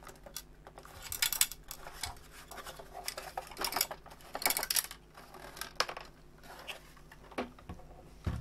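A loose screw rattling and clinking around inside the metal chassis of a Digimess UZ2400 frequency counter as the unit is tilted and shaken, in several separate bursts of clatter. This loose screw is the cause of the rattle the counter arrived with.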